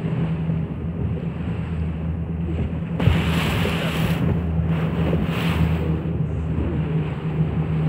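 A boat's engine drones steadily while the hull cuts through choppy sea, with water rushing and splashing alongside. The rush swells louder about three seconds in and again around five seconds in.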